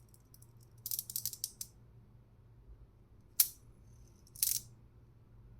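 Metal fidget spinner clicking as it is handled: a quick run of small sharp metallic clicks about a second in, one single loud click past the middle, and a short rattling click about a second after that.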